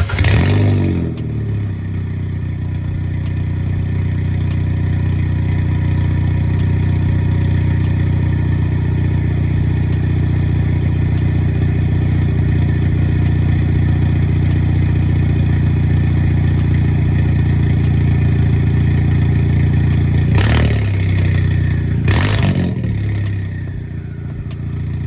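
Hyundai Veloster N's turbocharged 2.0-litre four-cylinder starting and idling with no exhaust after a catless downpipe and mid pipe, the pipe open straight out, giving a loud, really deep tone. Two quick revs come about 20 and 22 seconds in, then it settles back to idle.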